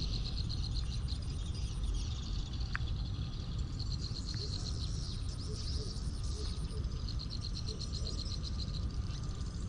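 A chorus of small calling animals in a rice field: trains of rapid, high chirping pulses that come and go, over a steady low rumble.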